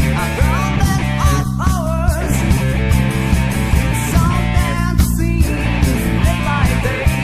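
Rock band playing an early studio demo of a song: distorted electric guitars, bass and drums with a steady beat, under a lead line that bends and wavers in pitch.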